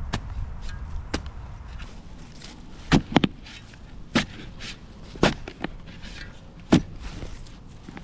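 A long-handled shovel digging a post hole in soil: a handful of sharp, irregular chops and scrapes as the blade is driven into the ground and worked in the hole. The loudest strikes come about three seconds in and near the end.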